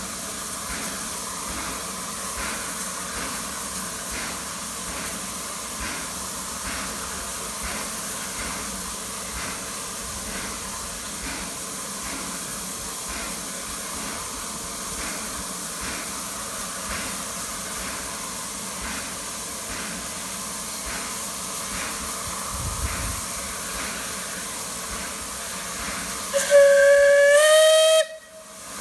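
Steady steam hiss from the Southern Railway Merchant Navy class Pacific locomotive Clan Line, with faint regular beats. Near the end the locomotive's whistle sounds once, loud and on one note, for about a second and a half. It rises slightly in pitch, then cuts off abruptly.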